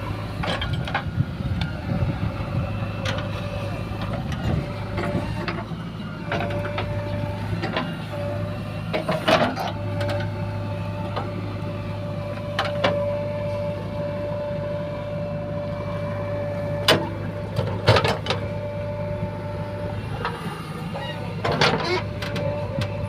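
JCB 3DX backhoe loader's diesel engine running steadily under work, with a higher steady tone that comes and goes and a few sharp knocks and clanks along the way.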